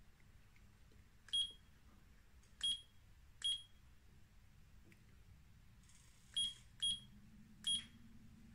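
LAOPAO LED lamp's built-in digital clock beeping once for each press of its setting buttons: six short, high beeps at uneven intervals.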